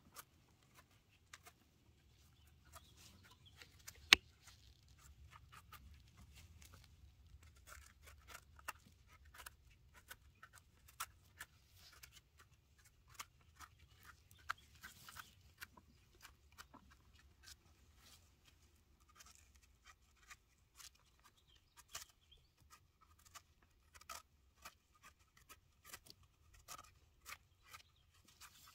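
Scattered small crackles and clicks of dry forest-floor litter being stepped on and handled while foraging for mushrooms, with one sharp knock about four seconds in, over a faint low rumble.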